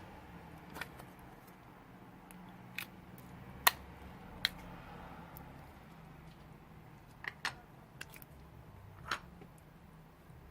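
Slime being handled and mixed by hand, giving scattered sharp sticky pops and clicks, about eight of them at irregular intervals, the loudest near the middle.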